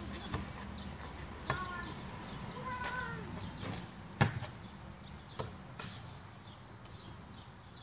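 Basketball being bounced and shot: a handful of sharp thumps and knocks, the loudest about four seconds in. Short chirping calls sound between the impacts.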